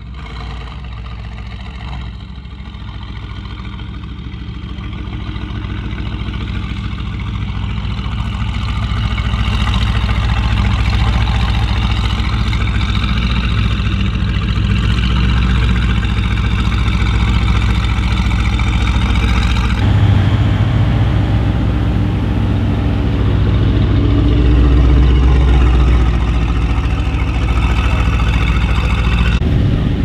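Mercedes-AMG GT R's twin-turbo V8 through an aftermarket Fi Exhaust, idling and running at low revs with a deep, steady note. It grows louder over the first ten seconds, and its note changes about twenty seconds in.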